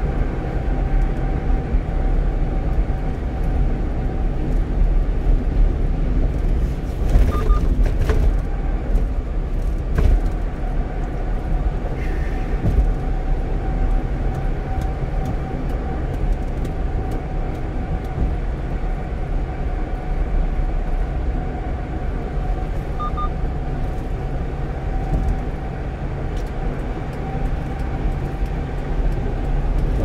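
Steady engine and road noise of a 1-ton truck cruising at highway speed: a constant low rumble with tyre hiss and a faint steady whine, and a short knock about ten seconds in.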